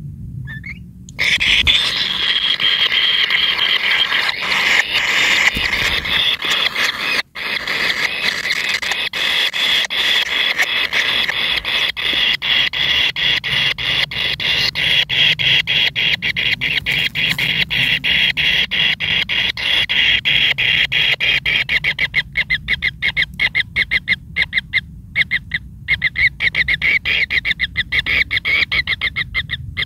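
Kingfisher chicks in their burrow nest begging for food: a loud, continuous, rapid chatter of repeated high calls. It starts about a second in, breaks off briefly about seven seconds in, and toward the end splits into separate quick pulses.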